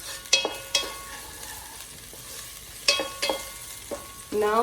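Onions, garlic and ginger sizzling in hot oil in a pan while being stirred, with sharp clinks of the utensil ringing off the pan a few times, around half a second in and again near three seconds.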